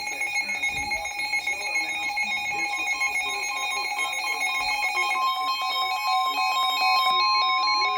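Emergency Alert System broadcast alert tones: a steady electronic tone, with a second, stronger tone joining about five seconds in, over a faint voice.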